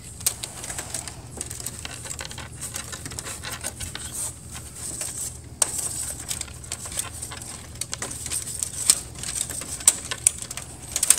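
Irregular clicks, taps and light scraping of wire bundles and their plastic connector heads being pushed and pulled through a hole in a laser printer's sheet-metal chassis, with one sharper knock about halfway through.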